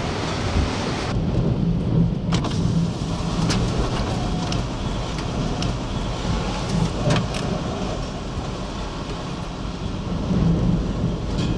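Extreme gusting wind, a heavy low rumble that swells and eases, with a few brief rattles or clicks.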